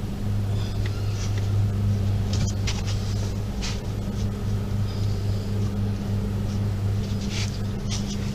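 A few short scrapes and clicks as a glued rubber plug is worked into the tire's puncture with the plug-kit insertion tool, over a steady low hum.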